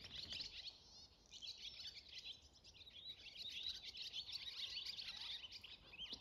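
A flock of barn swallows perched on a wire, twittering and chirping without pause, many birds calling over one another.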